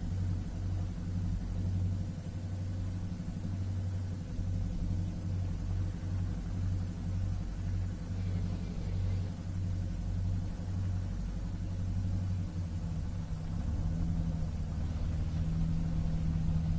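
Low, steady engine rumble with an uneven pulse, typical of a motorboat's engine heard from on board. About thirteen seconds in, a higher steady engine tone joins it and it gets a little louder.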